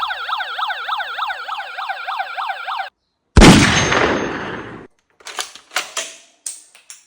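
Electronic sound effects from a toy police weapon set: a fast up-and-down yelping siren, about four sweeps a second, stops just under three seconds in, then a single loud gunshot sound that fades over a second or so, followed by several short clicks and pops.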